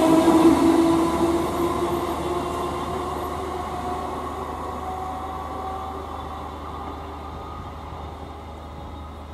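Class 315 electric multiple unit moving away, its running noise and a whine of several steady tones fading steadily as it recedes.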